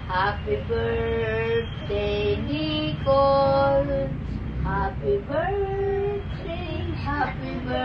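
An elderly woman singing a slow song in long held notes.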